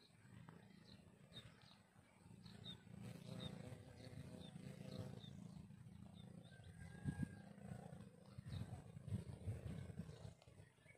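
Low, gusty rumble of wind buffeting the microphone, swelling in uneven gusts in the second half. Faint short high chirps repeat throughout.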